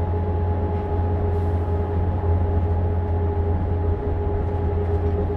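A Volvo vehicle running steadily at the radiator end: a constant low drone with a steady whine above it.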